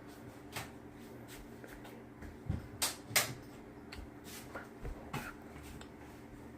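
Scattered light clicks and knocks of household handling, as of a kitchen cupboard or drawer being opened and shut while looking for a knife, the loudest pair about three seconds in, over a faint steady hum.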